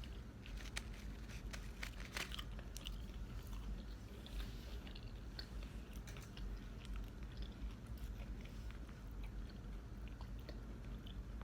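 A person chewing and biting fast food close to the microphone, with many short irregular clicks of mouth sounds.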